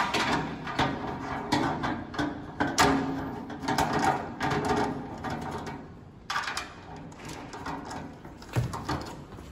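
Plastic gas tank holder knocking and clicking against the steel frame of a Weber Spirit E315 grill stand as it is fitted into place, busiest in the first six seconds, with a single thump near the end.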